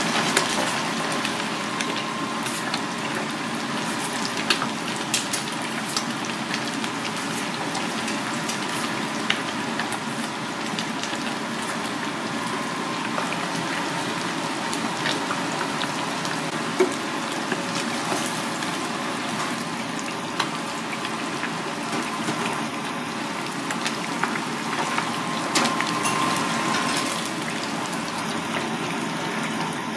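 Battered seafood deep-frying in a commercial fryer: hot oil sizzling and crackling steadily, with scattered sharp pops.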